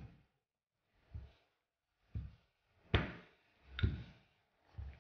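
Wooden rolling pin rolled back and forth over pastry dough on a silicone baking mat: a soft rumble with each stroke, about six strokes roughly a second apart.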